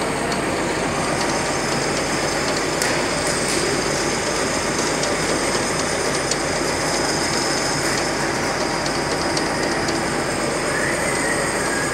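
Conventional metal lathe running under load while a boring bar cuts the inside of a metal ring held in the chuck: steady dense machine noise with the hiss of the cut and occasional faint ticks.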